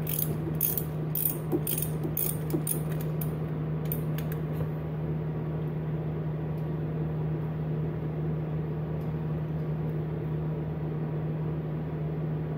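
Hand ratchet wrench clicking about three times a second, backing off 12 mm turbocharger manifold nuts that are barely tight. The clicking stops about four and a half seconds in, leaving a steady low hum.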